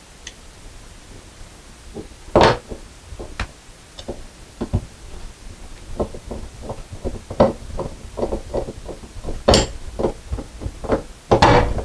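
Small clicks and knocks of screws being started by hand with a screwdriver through a closet-rod bracket into drywall anchors, with a few louder knocks.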